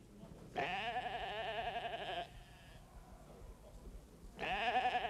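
A sheep bleating: two long, quavering bleats, the second starting near the end.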